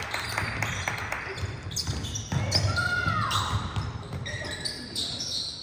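Basketball bouncing on a gym floor as it is dribbled, with many short sharp thuds, under crowd chatter.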